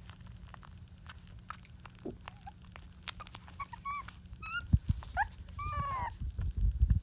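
Young Rottweiler puppies nursing, with small wet suckling clicks, then a puppy whimpering in a run of short high squeaks that rise and fall, about 3.5 to 6 seconds in. A few low bumps come near the end.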